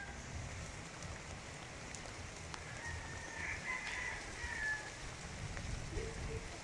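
Outdoor farm ambience: a steady hiss with a distant rooster crowing about halfway through.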